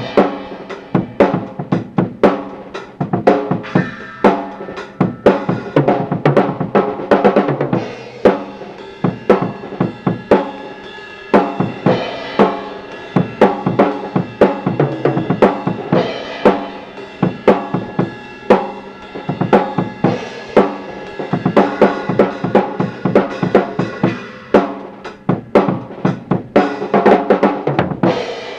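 Tama Imperialstar drum kit with Meinl cymbals played in a steady groove of kick, snare and cymbal hits, heard as a lo-fi recording made on an Optimus CTR-115 handheld cassette recorder through its add-on external microphone. The cymbals come through clear, without the clipping distortion of the built-in mic. The playing cuts off suddenly at the end.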